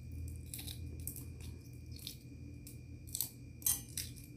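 Boiled egg being peeled by hand: the shell cracks and crackles in short, scattered bursts, the loudest about three and a half seconds in, over a steady low hum.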